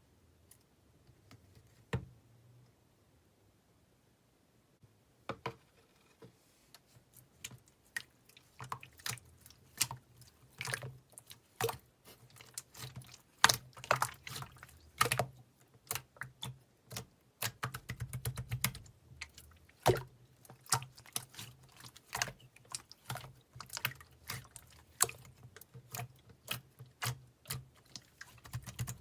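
Irregular sharp clicks and taps: one near the start, then from about five seconds in a fast, uneven run of several clicks a second, over a faint low hum.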